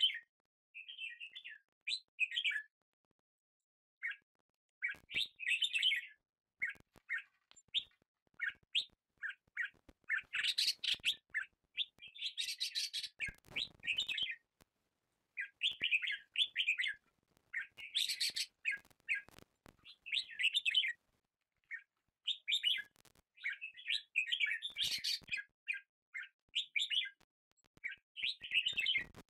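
Birds chirping in quick runs of short, high chirps, broken by brief silent gaps.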